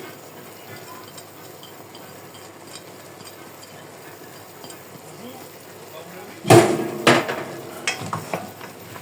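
Chicken peleau cooking in a pot with a low steady hiss, then about six and a half seconds in a loud burst of sizzling as the pot is stirred, a spoon knocking against it several times.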